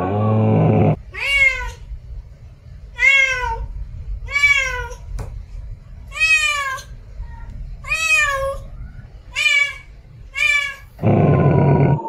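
A kitten meowing seven times in short, high calls about a second and a half apart. A camel's low, loud call, about a second long, comes at the start and again near the end.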